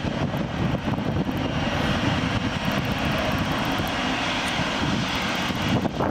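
Boeing 747-400's four turbofan engines running steadily at low taxi power as the jumbo jet rolls into its parking spot.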